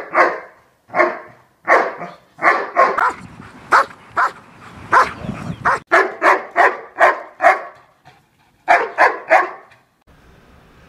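Doberman barking repeatedly, short sharp barks in quick runs with brief pauses, stopping about nine and a half seconds in.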